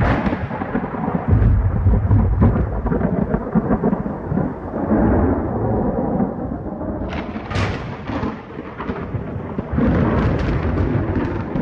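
Thunder rumbling low and heavy, with sharp cracking peals about seven seconds in and again near the end.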